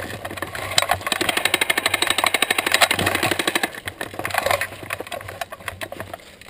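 Airsoft electric gun firing one full-auto burst: a rapid, even clatter of shots that starts about a second in and lasts about three seconds, followed by a few scattered clicks.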